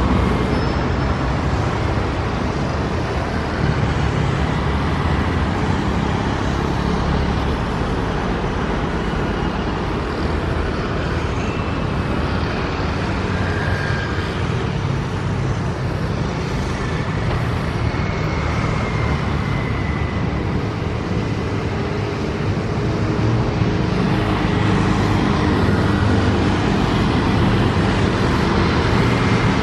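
Distant Boeing 737 jet engines running at low power as the airliner taxis and lines up on the runway: a steady rumble and hiss with a faint high whine now and then.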